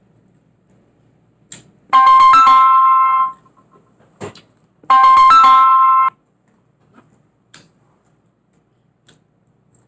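A two-note electronic chime sounds twice, each time for about a second, the second note higher than the first.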